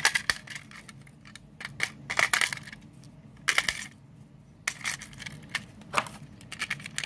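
AA batteries being pushed into the plastic battery compartment of a toy RC boat's remote transmitter: irregular clicks, clinks and short rattling scrapes as the cells go against the plastic and the metal contacts.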